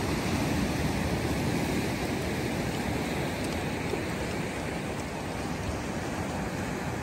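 Sea surf breaking and washing over a rocky shore: a steady rushing noise with no distinct single waves standing out.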